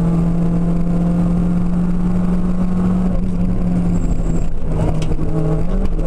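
A Seat Ibiza 16V rally car's engine, heard from inside the cabin, holds a steady note at speed over tyre and road noise. The note wavers a little past the halfway point, and a few short knocks come about five seconds in.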